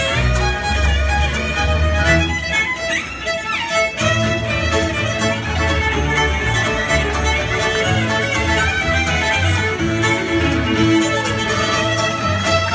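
Fiddles playing a medley tune live, backed by acoustic guitars and bass. The low bass notes drop out for a moment about two seconds in, then come back.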